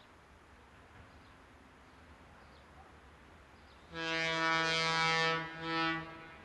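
Electric locomotive horn: one long blast of about a second and a half starting about four seconds in, then a short second blast.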